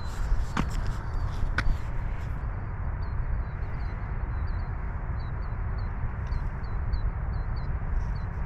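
Steady low outdoor background noise, with two sharp knocks in the first two seconds and a string of short, high chirps repeating about twice a second.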